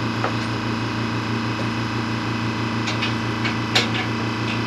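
A few short metallic clicks and clinks of hand tools at work, over a steady low hum.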